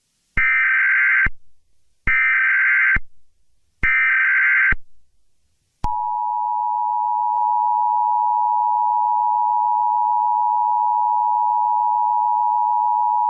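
Emergency Alert System SAME header: three one-second bursts of digital data tones with short gaps between them. About six seconds in, the steady two-tone EAS attention signal (853 and 960 Hz together) begins.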